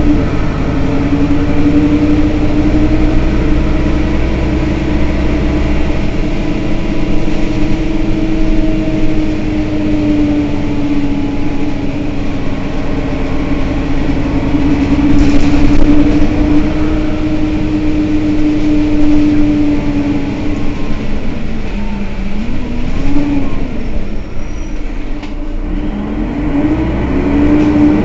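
Mercedes-Benz Citaro city bus idling at a standstill: a steady, loud hum over a low rumble. Near the end the hum's pitch sags and recovers twice.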